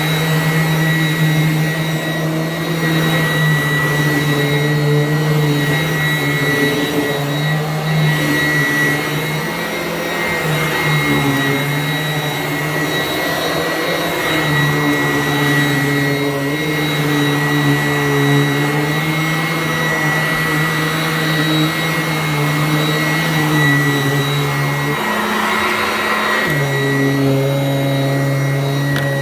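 Sanitaire vacuum cleaner running steadily with a high motor whine and a low hum whose pitch dips and rises now and then as it is worked, with one clear change near the end.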